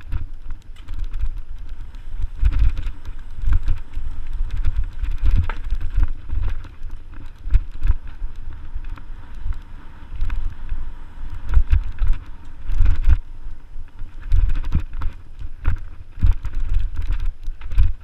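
Mountain bike riding along a bumpy dirt forest trail, heard from the rider's action camera: an uneven low rumble of wind and ride vibration on the microphone, with frequent short rattles and knocks from the bike over the ground.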